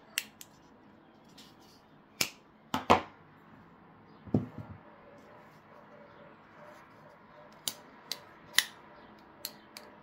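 Folding pocket knives being handled, with a series of short, sharp metallic clicks and snaps from blades and locks opening and shutting. There is a duller, lower knock about four seconds in. Another quick run of clicks comes near the end, as the Vosteed Raccoon's crossbar-lock blade is closed.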